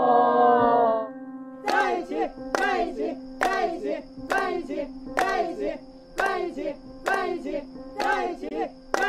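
A group of friends lets out a long 'wow' together. About two seconds in they start clapping in a steady rhythm, roughly one clap a second, and chant 'say yes!' with each clap to urge the woman to accept a love confession.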